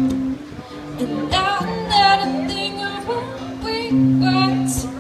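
A woman singing to her own acoustic guitar. The guitar chords ring throughout, and her voice comes in just over a second in.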